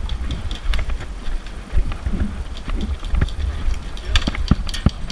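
Scattered sharp clicks and knocks at irregular spacing over a steady low rumble.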